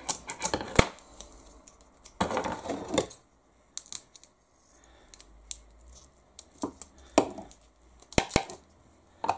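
Scissors cutting double-sided foam tape, with sharp snips and handling clicks separated by quiet gaps and a longer rasping stretch about two seconds in.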